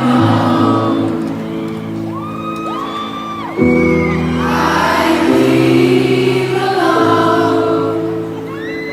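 Live performance of a slow ballad: a woman singing over sustained low chords that change about every one and a half to three seconds.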